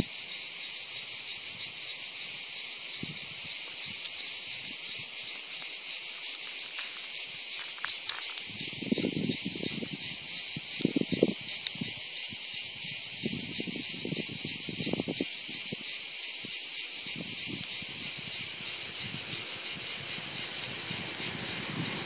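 Cicadas singing in a steady, unbroken drone. A few low muffled rumbles come through in the middle.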